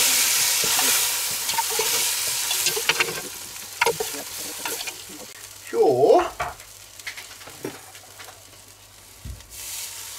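Mushrooms sizzling in hot fat in a cast-iron Dutch oven while a metal spoon scoops them out, with clicks and scrapes of the spoon against the pot. The sizzle fades as the pot empties. A brief pitched sound comes about six seconds in, and the sizzling picks up again near the end as broth is poured into the hot pot.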